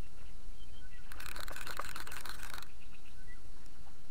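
Steady low wind rumble on the microphone. About a second in, a hissing rustle lasts about a second and a half, and a few faint short bird chirps come and go.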